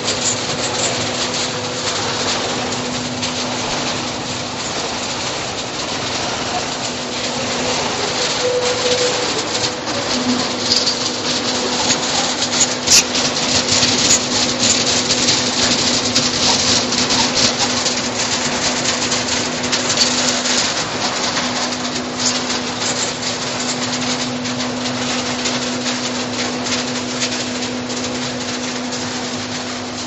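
Waste paperboard handling machinery running: a steady motor hum with a dense, crackling rattle of cardboard scraps being conveyed, busiest in the middle.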